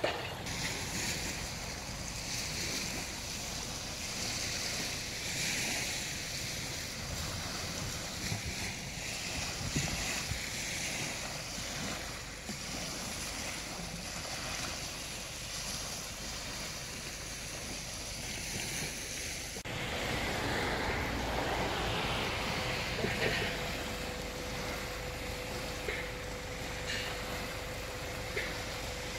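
Sea waves washing onto a beach, with wind on the microphone. About 20 s in the sound changes abruptly, and a faint steady hum runs under the surf after that.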